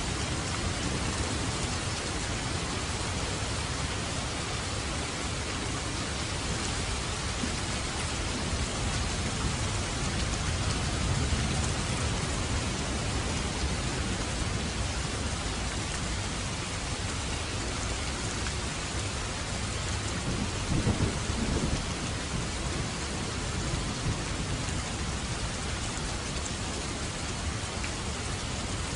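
Steady heavy rain, a dense even hiss, with a low rumble underneath. There is a brief louder swell about 21 seconds in.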